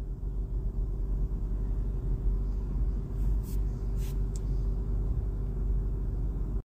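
Steady low rumble of city street traffic, with a steady hum under it and a few brief faint clicks about three to four and a half seconds in.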